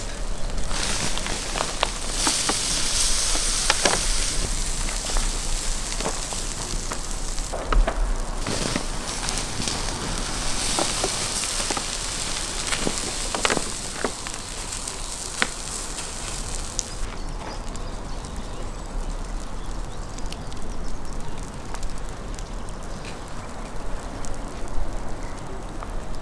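Wood fire crackling with scattered sharp pops, overlaid in the first part by two long stretches of hissing as liquid is poured over the spit-roasting lamb carcass and onto the hot embers.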